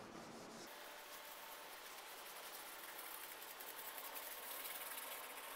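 Faint steady room noise in a small tiled kitchen: a low hiss with a faint hum, swelling slightly near the end.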